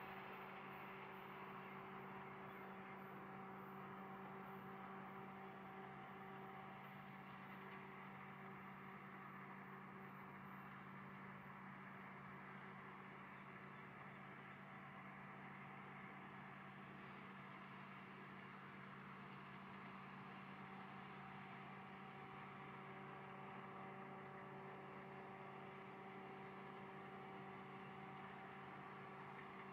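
Faint, steady machinery hum of an industrial plant, with a few unchanging low tones.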